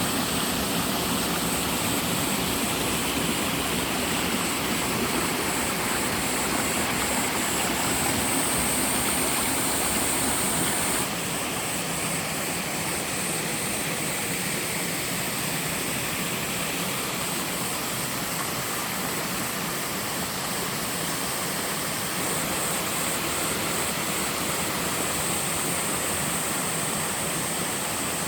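Water pouring over a two-tier twin waterfall: a steady, dense rush, dropping slightly in level and changing character suddenly about eleven seconds in.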